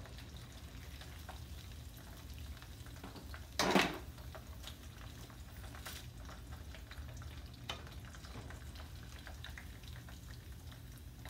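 Breaded pork cutlets sizzling in shallow oil in a frying pan as they are lifted out with metal tongs, with light tong clicks and one short, loud clatter about four seconds in.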